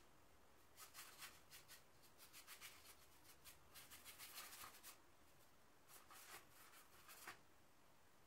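Faint scratchy strokes of a paintbrush dragging acrylic paint across a canvas board: a quick run of strokes, a pause about five seconds in, then a few more.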